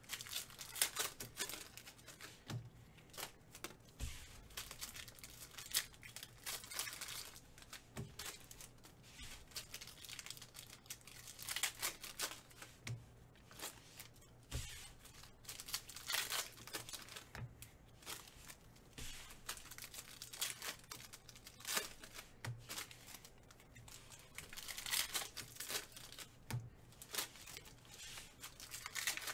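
Foil trading-card pack wrappers being torn open and crinkled by hand, in irregular bursts, with a few soft thumps on the table.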